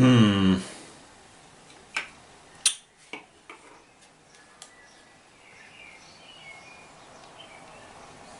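A short low hum or grunt of a voice at the start, then several sharp clicks and taps, the loudest about two and a half seconds in, as test probes and tools are handled on the workbench. Faint birdsong comes from outside.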